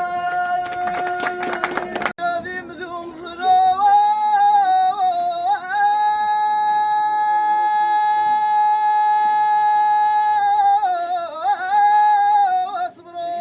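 A high voice chanting an Amazigh inchaden melody. It wavers and bends, then holds one long steady note for about four seconds before sliding off near the end. A fast run of sharp knocks sounds in the first two seconds.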